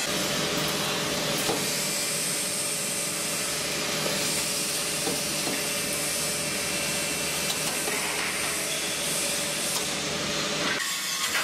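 Wire mesh welding machine running in the workshop: a steady hiss with a faint hum and a few scattered light clicks. The hiss thins out abruptly near the end.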